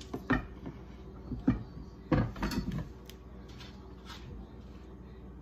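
Kitchen handling noises: a series of short knocks and clicks as a glass bowl and a plastic soy-sauce bottle are moved about on a counter, the loudest a little over two seconds in.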